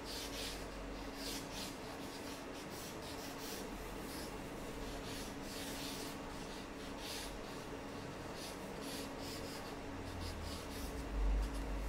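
A drawing tool scratching and rubbing across paper in quick, uneven strokes, over a faint steady hum, with a low thump near the end.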